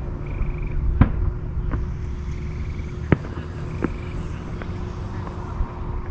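Fireworks shells bursting far off, heard as several sharp, separate bangs over a steady background rumble; the loudest come about a second in and just after three seconds. A high pulsed trill repeats faintly between the bangs.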